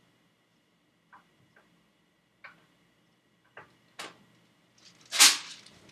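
Clicks and knocks from a handled BB gun, about five separate ones, then a louder rushing or scraping sound of about half a second near the end.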